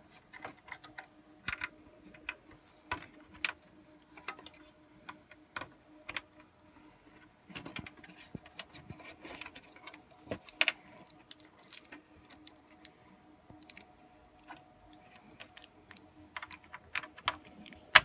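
Irregular clicks and light clatter of hands plugging cables and handling metal and plastic parts inside an open rack-server chassis, with a sharper click near the end. A faint steady hum runs underneath.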